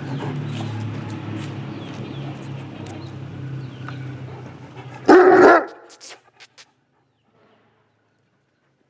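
A large dog barks once, loud and short, about five seconds in, over a steady low hum.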